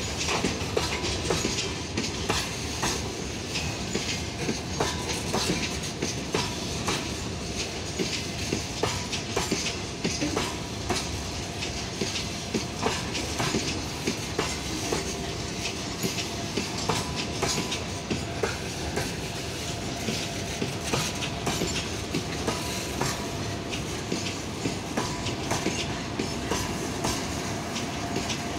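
Freight train's open-top wagons rolling past at speed, their steel wheels clattering and knocking over the rail joints in a continuous irregular clickety-clack.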